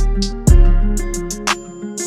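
Background music: plucked guitar-like notes over a beat with heavy bass-drum hits.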